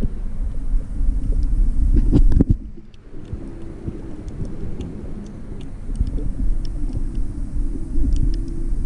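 Underwater sound picked up by a camera held in murky shallow sea water: a constant low rumble of moving water with scattered small clicks. The rumble drops away briefly about two and a half seconds in, then returns.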